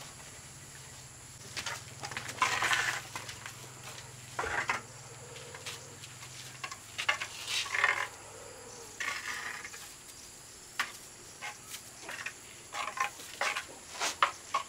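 Irregular scrapes and knocks of hand tiling work, some short and sharp, some drawn out for about half a second. A faint low hum fades out about halfway through.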